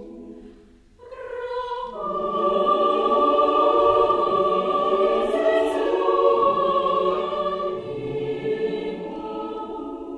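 Choir singing sustained chords. A soft phrase dies away about a second in, then the voices re-enter and swell into a loud held chord that gradually softens near the end.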